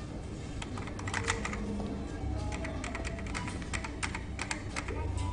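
Typing on a computer keyboard: irregular runs of quick key clicks, over faint background music.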